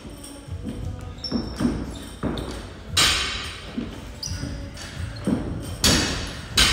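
A man breathing hard in sharp, rushing exhalations as he hangs from a pull-up bar and starts strict pull-ups, heavy from a long weighted workout. The loudest breath comes about three seconds in, with two more near the end.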